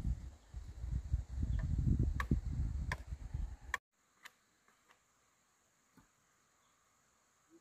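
Wind buffeting the microphone in an irregular low rumble, with a few sharp clicks, cutting off abruptly about four seconds in. What remains is a faint steady hiss with occasional soft ticks.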